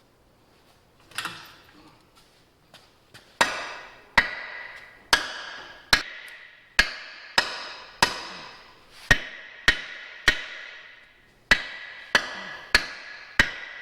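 Hammer striking steel: a dozen or more sharp, ringing blows, about one to one and a half a second, starting a few seconds in after a softer knock.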